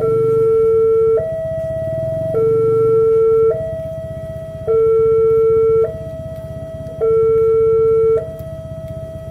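Railway level-crossing warning alarm sounding a two-tone electronic signal: a lower, louder tone and a higher tone alternate about every second and a quarter, four low–high cycles. It means a train is approaching and the crossing is closed.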